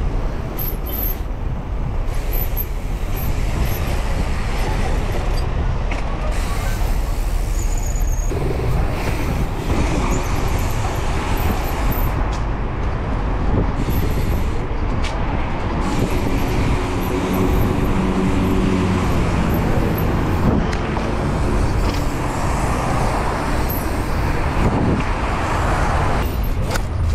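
Wind rushing over an action camera's microphone and city traffic as a mountain bike rolls along a busy street and pavement. A steady pitched hum, like a passing vehicle's engine, joins for a few seconds a little past the middle.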